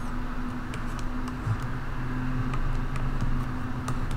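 Steady low hum with light, sharp clicks scattered about once a second, typical of a mouse or pen being clicked as red annotation strokes are drawn on a computer.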